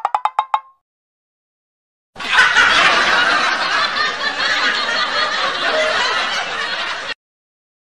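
A short run of rapid clicks, rising slightly in pitch, ends just after the start. After a gap of dead silence, about five seconds of crowd laughter starts suddenly and cuts off abruptly.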